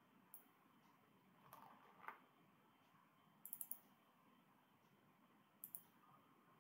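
Faint clicks of a computer mouse and keyboard: a few single clicks and a quick run of about four in the middle, over near-silent room tone.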